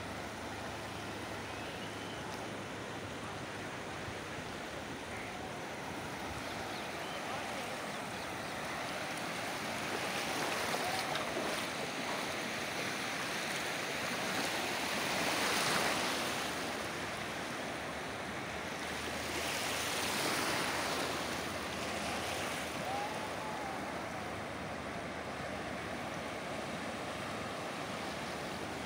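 Sea surf washing in over the shallows at the shoreline: a continuous rushing hiss of breaking waves that swells louder a few times, loudest about halfway through.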